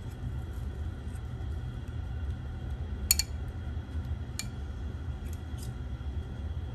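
Chopsticks clicking against a ceramic bowl twice, about three seconds in and again a second and a half later, over a steady low hum.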